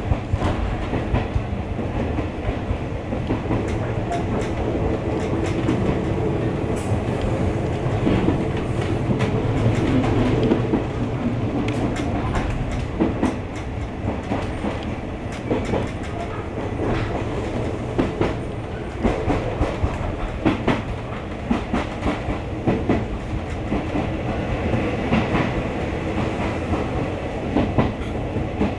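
Former Ginza Line electric railcar running along the line, heard from inside the driver's cab. A steady low rumble is broken by wheel clicks over rail joints, which come at irregular intervals.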